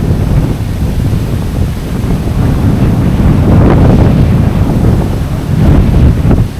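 Strong gusting mountain wind buffeting the camera microphone: a loud low rumbling that swells in gusts about three seconds in and again near the end.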